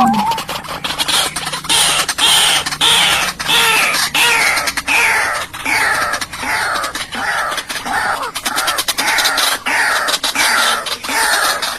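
White-breasted waterhen calling: a long series of harsh, falling notes repeated about twice a second, with sharp clicks among them.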